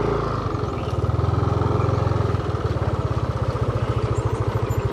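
Motorcycle engine running at low speed with a steady, rapid putter; the deeper hum under it drops away about halfway through.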